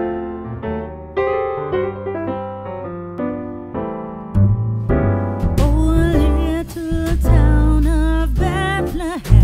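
Background music: an electric piano playing separate notes. About halfway through, bass and drums come in and a singing voice enters.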